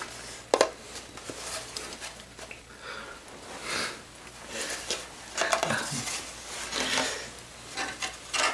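Fingers scratching and tapping a carved wooden mask close to the microphone: irregular scratchy strokes with a few sharp taps, the sharpest about half a second in.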